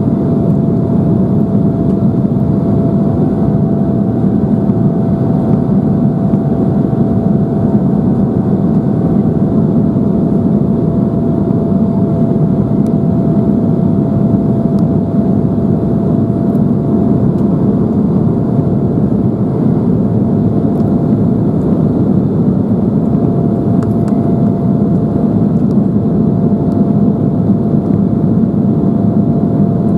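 Steady cabin noise of an Embraer 175 in flight, heard from a passenger seat: the deep, even rush of its GE CF34 turbofans and the airflow past the fuselage, with a thin steady whine running over it.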